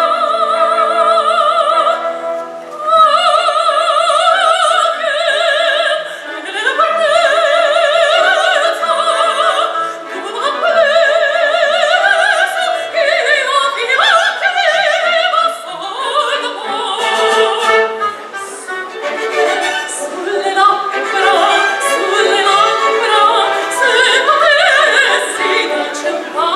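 A woman singing opera with orchestral accompaniment, holding long notes with wide vibrato and sliding up into several of them. The accompaniment grows fuller and busier about halfway through.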